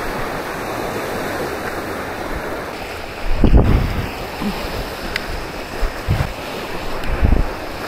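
Sea waves washing steadily onto a beach, with wind buffeting the microphone in a few low gusts, the strongest about three and a half seconds in.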